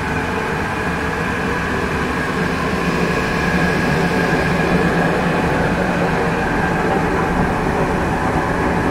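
Marble tile resizing machine running steadily: two water-cooled circular saw blades spinning over a conveyor, with a continuous motor hum holding several steady tones.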